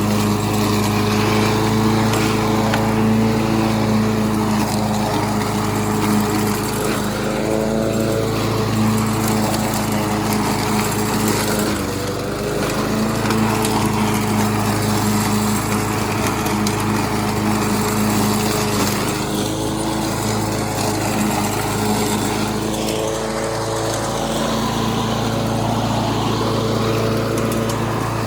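Gas walk-behind lawn mower engine running steadily while cutting grass; about twelve seconds in its pitch dips briefly under load and then comes back up.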